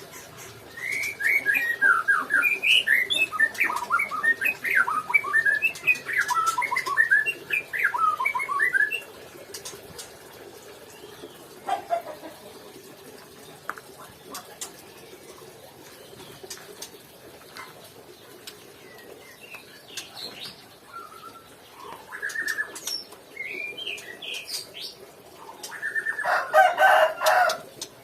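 Male white-rumped shama (murai batu) singing a rapid, varied run of notes for about eight seconds. After a quieter stretch with a few short calls, a brief loud burst of song comes near the end.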